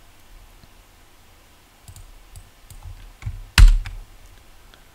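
Computer keyboard and mouse clicks: a few light clicks about two to three seconds in, then one loud sharp click at about three and a half seconds.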